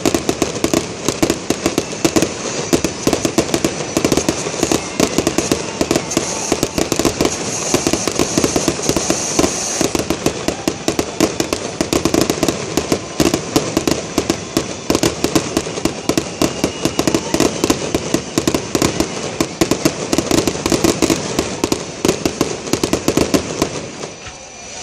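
Aerial fireworks display: a dense, unbroken barrage of rapid pops and crackles from bursting shells, thinning out briefly near the end.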